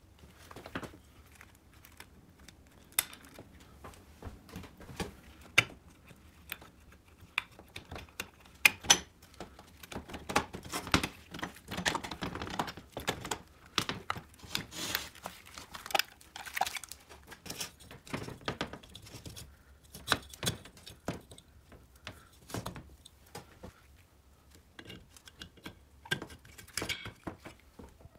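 Hands assembling a moped engine: aluminium crankcase, piston and cylinder parts handled and fitted, with irregular metal clicks, knocks and clatter and the rustle of work gloves. The sounds come loose and uneven, busiest around the middle.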